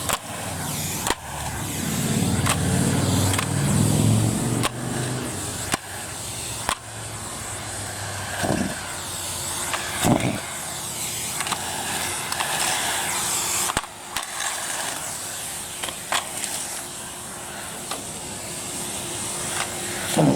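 Numatic Henry vacuum cleaner running, with many sharp clicks and rattles of debris being sucked up and wheels rolling over hard ground. A low rumble comes about two seconds in, and two short louder bursts follow, about a second and a half apart, near the middle.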